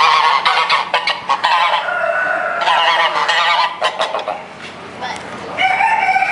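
Domestic geese honking: several bouts of loud, harsh calls, with a longer call near the end.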